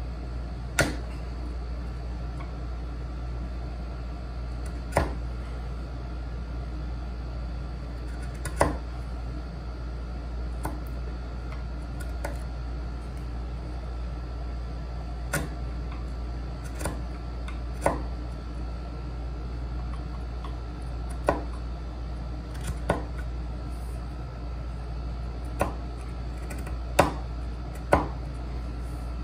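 Hand woodworking tools knocking sharply against wood during dovetail work, about a dozen single knocks spaced irregularly a few seconds apart, over a steady low hum.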